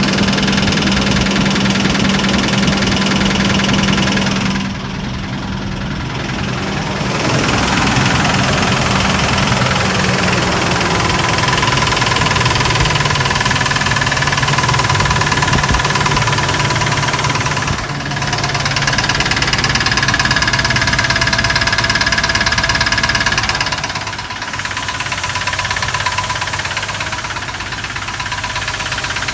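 Engine running with a repetitive knock, which the owner cannot tell apart as lifter noise or rod knock. It dips briefly in level a couple of times.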